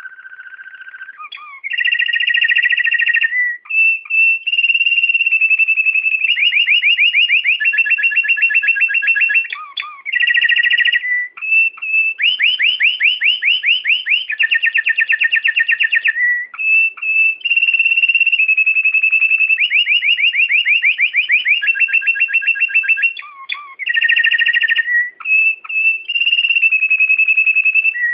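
A songbird singing a long, loud song of clear whistled notes and very fast trills, in phrases separated by short pauses. The song opens with a quieter held note about a second long.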